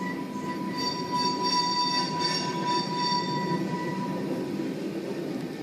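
Tank cars of a freight oil train rolling past with a steady rumble of wheels on rail, and a high wheel squeal that rings out about a second in and fades after a few seconds. Heard through window glass.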